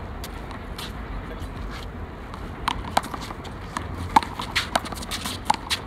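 Handball rally on an outdoor court: a series of sharp smacks of the rubber handball off the concrete wall and ground, mixed with quick footsteps, starting a little under three seconds in, over a low wind rumble.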